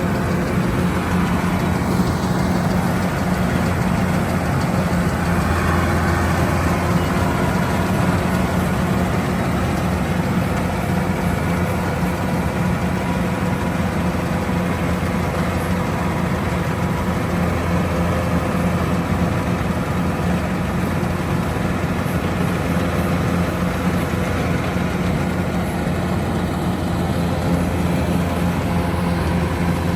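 Kubota rice combine harvester running steadily, its diesel engine giving a constant low drone with the threshing machinery's noise over it.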